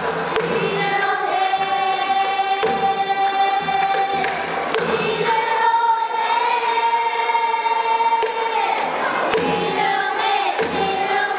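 A group of children singing a pansori song in unison, holding two long notes, the second higher than the first. A few strokes of a buk barrel drum are heard under the singing.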